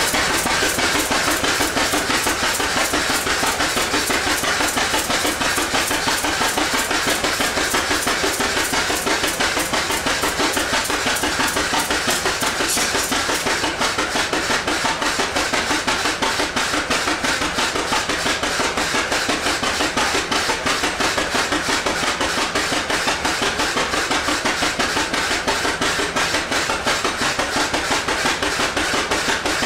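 1917 Avery tractor's engine running hard under heavy belt load, a fast, steady, even beat of knocks and exhaust.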